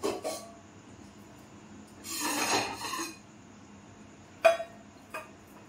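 Dishes being taken down from a kitchen shelf: a scraping slide of a dish across the shelf lasting about a second, then a sharp clink of crockery near the end.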